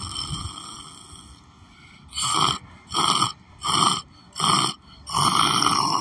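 A man's snoring noises: four short snores in quick, even succession, then one longer snore near the end.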